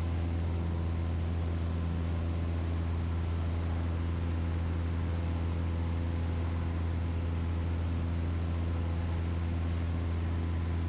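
Super Decathlon's four-cylinder piston engine droning steadily inside the cockpit: a constant low hum with a steady hiss above it.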